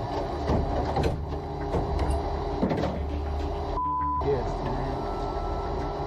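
Drag race car's engine idling with a steady heavy rumble. About four seconds in, a short steady bleep briefly replaces the other sound.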